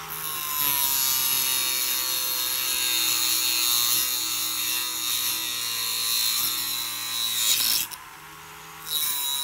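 Ryobi ONE+ cordless rotary tool running at medium speed with a cutting wheel, cutting through hard plastic: a steady motor whine under a loud hissing cutting noise. Near the end the wheel leaves the plastic for about a second, leaving only the whine, then bites in again.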